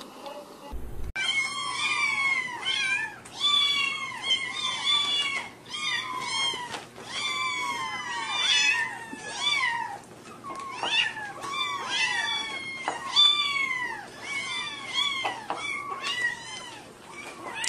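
A litter of kittens meowing over one another, starting about a second in. The many high-pitched mews rise and fall and overlap almost without a break.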